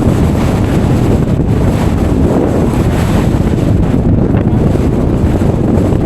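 Winter-storm wind buffeting the microphone: a loud, steady, low rumbling noise.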